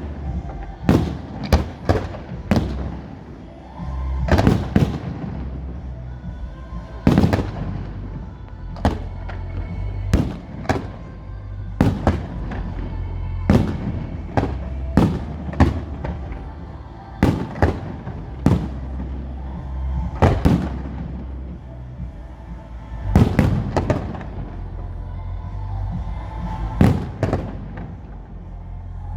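Aerial fireworks bursting in a rapid, irregular string of sharp bangs, sometimes several close together, with music playing underneath.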